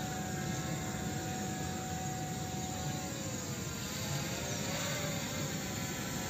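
P18 Pro brushless-motor quadcopter drone flying overhead: a steady propeller whine whose several pitches waver up and down as the drone manoeuvres, over a low rushing hum.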